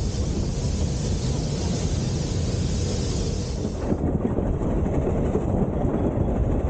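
Narrow-gauge steam train heard from an open carriage window. At first there is a steady rushing hiss as the train runs through its own steam. About four seconds in, the hiss gives way to the rumble and clatter of the carriage wheels on the rails.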